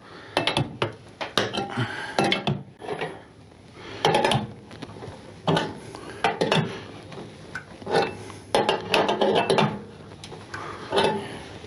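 Old scissor jack being cranked up by hand: irregular metallic clinks and knocks, coming in short clusters, as it lifts a motorcycle's rear end.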